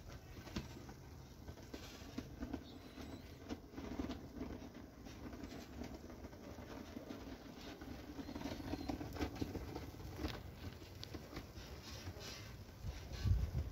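Light crackling and sizzling from a fish grilling in a wire basket over charcoal embers: many small scattered pops. A couple of low thumps come near the end.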